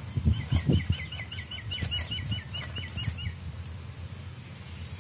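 A bird calling a quick series of about fifteen short, repeated chirps, about five a second, that stops a little over three seconds in. Low thumps sound in the first second.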